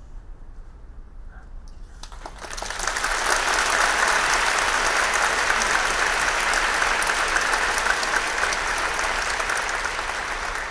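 Concert-hall audience applauding, breaking out about two seconds in after a short hush and then holding steady.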